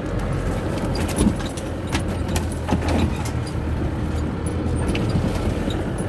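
A 4x4 engine running steadily at low speed, heard from inside the cabin, with short rattles and knocks scattered throughout as the vehicle bumps over a rough bush track.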